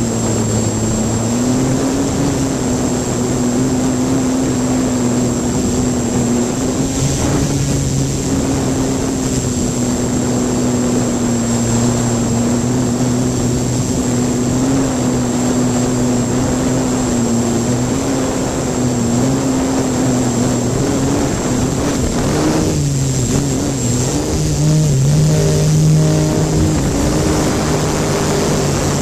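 3DR hexacopter's electric motors and propellers droning steadily, heard from a camera taped to one of its arms. The pitch wavers throughout and shifts upward about three-quarters of the way through as the craft climbs.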